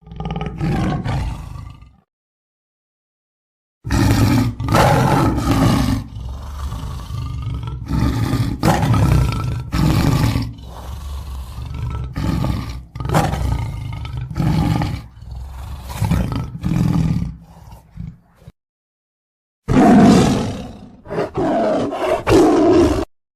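A lion roaring loudly in three spliced takes, each cut off into dead silence: a short one at the start, a long run of repeated roars from about four seconds in, and another run near the end.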